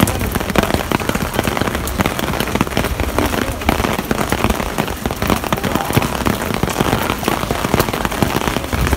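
Heavy rain falling steadily, a dense hiss with many close drops striking hard surfaces.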